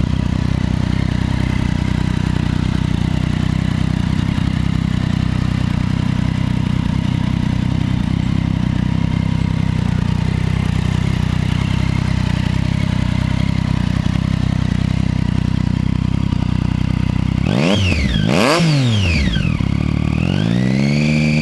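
2013 Triumph Street Triple's 675 cc inline three-cylinder engine through a GPR Powercross exhaust with the dB killer fitted. It idles steadily, is blipped twice in quick succession near the end, then rises and holds a higher steady note.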